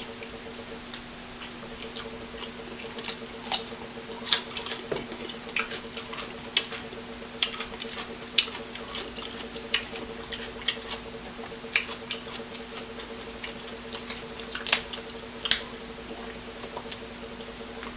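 Close-miked eating of seafood-boil food: irregular sharp clicks and wet smacks of chewing and handling shellfish, every second or so, over a steady low hum.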